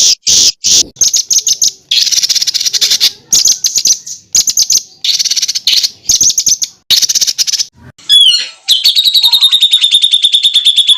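Songbird giving dense, harsh 'tembakan' phrases: a run of rasping, buzzy bursts about half a second long with short gaps between them. Near the end it switches to a fast, even trill of about fifteen notes a second.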